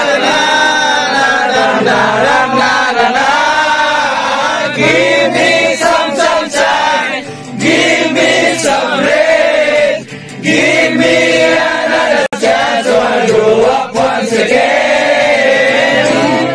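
A group of young men singing together, a loud unaccompanied-sounding chorus of voices, with short breaks between phrases.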